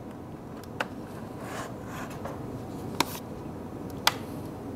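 Lenovo ThinkPad E14 bottom panel's clips snapping into place as the panel is pressed back onto the laptop: three sharp clicks, a small one about a second in and two louder ones about three and four seconds in, with faint rubbing of the case between.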